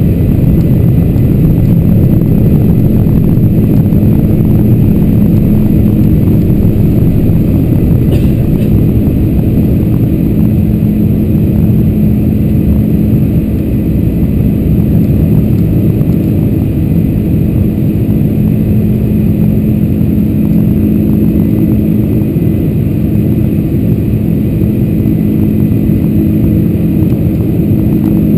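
Boeing 747-400's four General Electric CF6-80C2 turbofans at takeoff thrust, heard inside the cabin: loud, steady engine noise with a low steady hum as the jumbo finishes its takeoff roll, lifts off and climbs.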